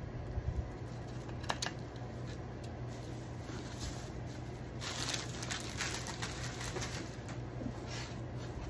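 Scissors snipping and the rustle of dry hula-skirt strands being trimmed. A few sharp snips come about a second and a half in, and a busier patch of crackling strokes follows around the middle, over a steady low hum.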